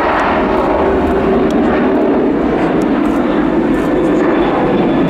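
Boeing 737 twin-jet engines running at high thrust, a loud, steady roar on the takeoff roll as the airliner rotates.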